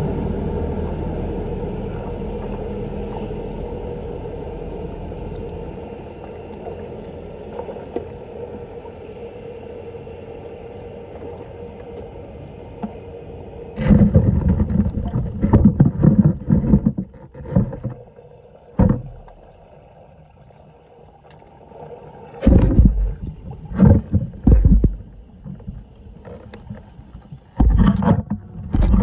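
Floodwater being worked, probably while the drain is cleared: a steady rushing noise that slowly fades, then from about halfway a series of loud, irregular splashes and sloshes in shallow water, with a short lull before a few more.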